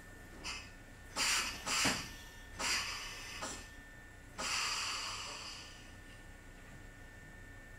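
Standing Kotoden 1070-series electric train letting out short bursts of compressed-air hissing, several in quick succession and then a longer hiss about four and a half seconds in that fades away, with a faint steady high tone underneath, just before it pulls away.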